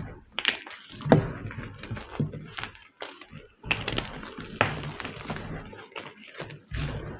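Homemade gym chalk being crushed and crumbled, a run of irregular crunches and crackles with a few sharper snaps.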